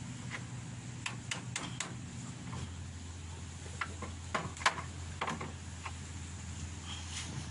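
A scattered series of light knocks and taps, about ten, from hand tools working on a small wooden boat being fitted with a rudder; the loudest knock comes a little past the middle. A low steady hum runs underneath and drops in pitch about a third of the way in.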